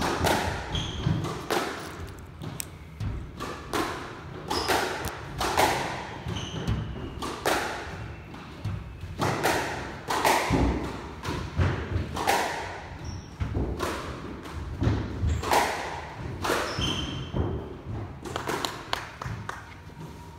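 A squash rally: the ball cracks off rackets and the court walls about once a second, each hit echoing in the enclosed court, with brief squeaks of shoes on the wooden floor. The hits stop near the end as the rally finishes.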